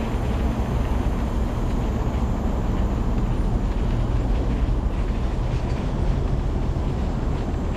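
Steady low rumble of wind buffeting the microphone, mixed with motion noise, while moving fast along a dirt forest trail.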